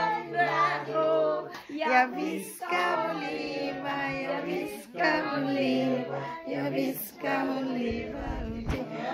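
A group of children and adults singing a birthday song together.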